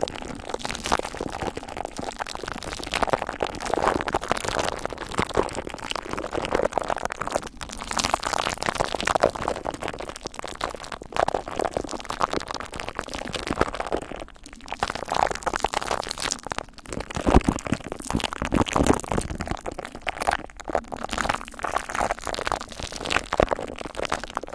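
Glue stick handled and rubbed close to a microphone, making a dense, sticky crackling and clicking with a few brief pauses.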